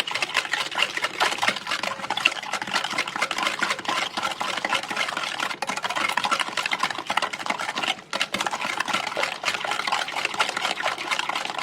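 Eggs and sugar being beaten together in a bowl, steadily, until the sugar granules dissolve, with a brief pause about eight seconds in.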